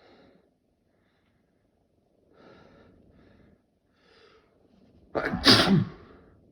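A man sneezing: a few quiet catching breaths build up, then one loud sneeze about five seconds in. He thinks the sneezing comes from a cold.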